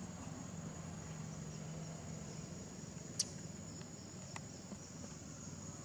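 Steady outdoor ambience with a continuous high insect buzz, and a single sharp click about three seconds in, followed by a couple of faint ticks.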